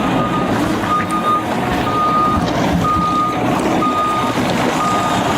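A heavy vehicle's backup alarm beeping steadily, one single-pitched beep about every second, over the rumble of a running engine.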